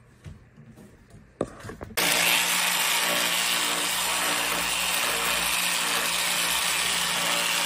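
A few light knocks, then about two seconds in a corded handheld power tool starts and runs steadily, cutting into the wooden countertop edge around the sink opening to enlarge the cutout for a bigger sink.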